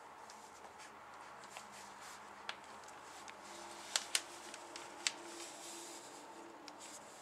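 Faint rustling and crinkling of newspaper and blanket bedding as a heap of young Border Collie pups shifts about, with a few sharper crinkles about four and five seconds in.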